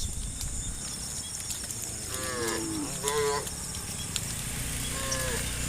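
Cattle in a herd mooing: two short calls, each falling in pitch, about two and three seconds in, and a fainter one near the end, over a steady low rumble.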